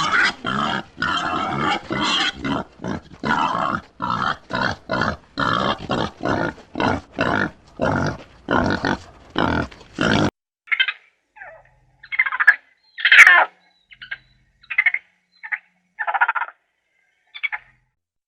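Farm animal calls: a fast run of grunting calls, about two or three a second, for roughly ten seconds, then shorter, higher calls spaced apart.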